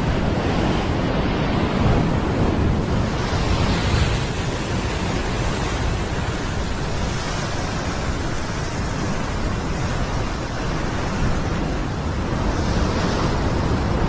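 Heavy surf breaking and washing against a sandstone rock ledge: a steady rush of foaming white water that swells now and again.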